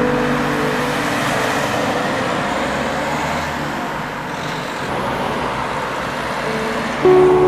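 Road traffic: a steady rushing of tyres and engines as cars pass on a wet street. A music track's held notes fade out about a second in and come back near the end.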